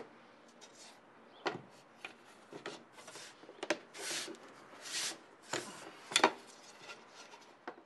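Plywood panel being handled and pressed down onto its frame: a run of wooden knocks and clicks, the loudest about six seconds in, with two short scraping rubs of hands sliding over the board about four and five seconds in. The pressing drives the plastic centre points into the back of the panel to mark the hole centres.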